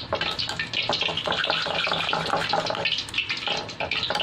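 Metal spoon stirring raw beaten egg and shredded cabbage in a ceramic bowl: wet sloshing with many quick clinks and scrapes of the spoon against the bowl.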